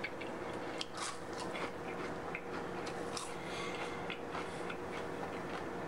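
Someone eating chicken wings: quiet bites and chewing with scattered small crunches and clicks, over a faint steady hum.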